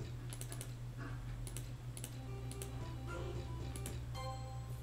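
Online video slot game audio: a simple looping electronic tune with sharp clicks about once a second as the reels spin and stop, a quick run of three near the start.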